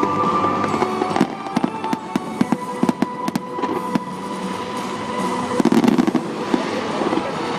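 Fireworks crackling in a quick run of sharp pops from about a second in, with a louder, fuller burst about three quarters of the way through. Music with steady held notes plays underneath.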